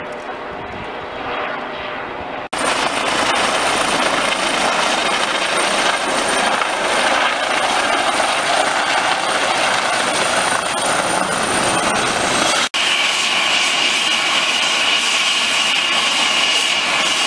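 Eurocopter EC135 air ambulance helicopter: rotor and engine noise, at first fairly distant, then, after an abrupt jump in loudness about two and a half seconds in, a loud steady rush as it sets down on the sand. After another abrupt cut near the end, a steady high whine rises above the rotor noise as it stands running on the ground.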